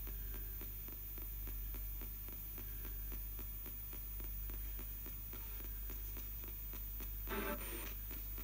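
Spirit box sweeping backwards down the AM band: a steady hiss of static and hum, broken by rapid, regular clicks as it jumps from station to station. A short louder snatch of station sound comes through about seven seconds in.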